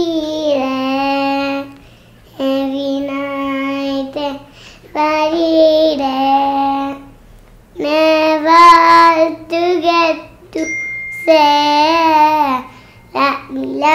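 A young girl singing a song solo without accompaniment, in held, gliding phrases separated by short pauses.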